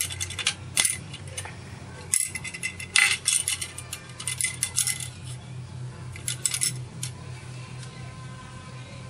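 Mother-of-pearl caviar spoons clicking and clinking against one another and against a pearl-oyster shell as they are handled and set down: clusters of light, sharp taps, loudest about three seconds in, stopping about seven seconds in. A steady low hum runs underneath.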